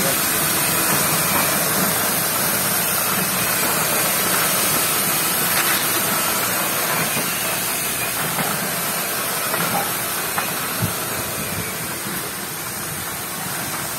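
Sweet potato washing machine running: a steady hiss like water spray over the machine's running noise, with a few light knocks.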